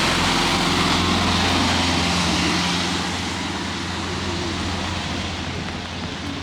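A motor vehicle's engine running past on a wet street, loudest for the first few seconds and then fading, over a steady hiss of rain.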